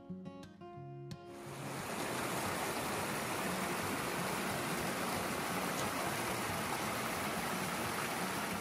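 Acoustic guitar music that gives way about a second in to the steady rush of a creek flowing over rocks, with the music still faintly underneath.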